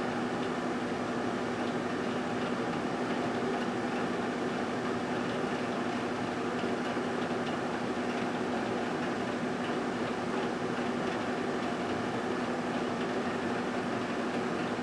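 1978 GE Dual Wave microwave oven running: a steady, unchanging hum over an even whirring noise.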